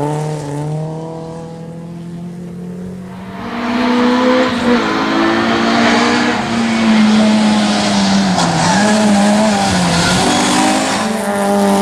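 Opel Corsa GSI rally car's engine at full competition pace. It eases off for a couple of seconds, then comes back loud under power and holds a high, steady note with a few brief dips.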